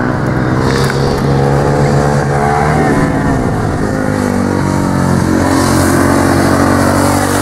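Sport motorcycle engines running loud through a bend, their pitch falling and rising several times as the bikes slow into the corner and accelerate out.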